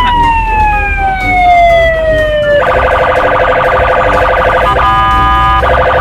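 Police car's electronic siren: one long wail that sweeps up and then slowly falls, switching about two and a half seconds in to a fast pulsing yelp, over a low traffic rumble.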